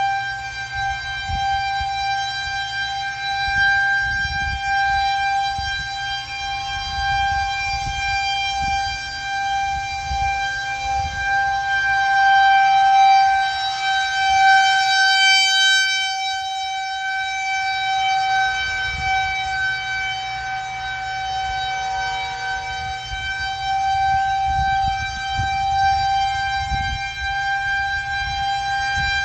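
Federal Signal 2001-130 outdoor warning siren sounding a steady tornado-warning tone, one held pitch that swells and fades as the rotating siren head turns.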